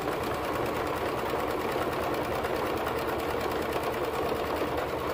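Electric domestic sewing machine stitching steadily, a fast, even run of needle strokes as a cuff is sewn on.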